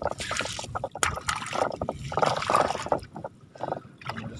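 Water splashing and trickling as a long-handled scoop net is dipped and swept through the shallow water of a net fish pen, in irregular splashes over the first three seconds, quieter near the end.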